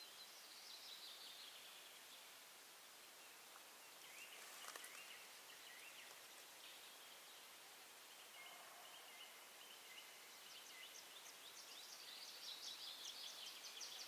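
Faint songs of small forest birds over a quiet background: a short falling phrase at the start, scattered high notes, then a rapid high-pitched trill that grows busier toward the end.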